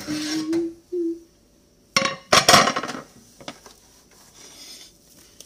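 A woman's short hummed notes at the start, then a clatter of a glass food container and dishes knocking on a table about two seconds in, followed by a few lighter clinks.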